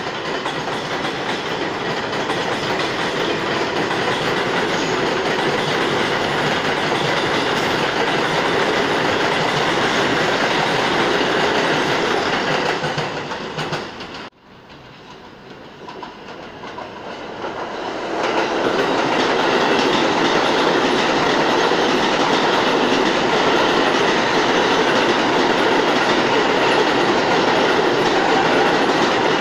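New York City subway trains passing through an elevated station, wheels clattering over the rail joints. The first train's noise fades and drops away suddenly about 14 s in; a few seconds later a second train builds up and runs loudly past on the near track.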